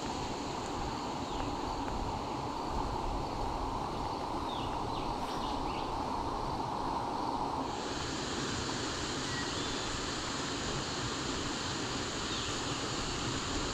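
Outdoor ambience: a steady wind rumble on the microphone under a steady high insect hiss, with a few brief bird chirps.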